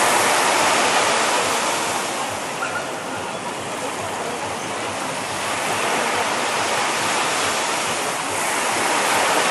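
Small ocean waves breaking and washing up a sandy beach: a steady rush of surf, louder at first, easing off in the middle and swelling again near the end.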